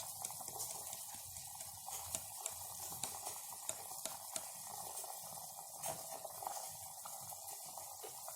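Pot of ginger rasam (tamarind water with ginger and rasam powder) at a boil: steady bubbling with frequent small pops.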